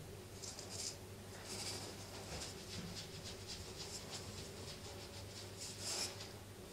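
Soft scratchy rustling, in short faint patches, as cloth hand puppets are moved and handled, over a low steady hum.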